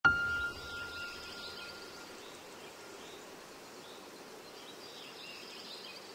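A ringing tone that starts sharply and fades away over about two seconds, then faint steady background noise with faint high chirps.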